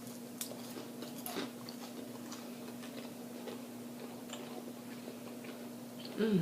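Soft chewing and faint mouth clicks of a person eating close to the microphone, over a steady hum. A short vocal sound with falling pitch comes near the end.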